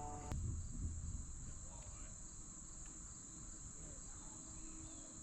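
Steady high-pitched insect chorus of crickets, with a low rumble in the first second.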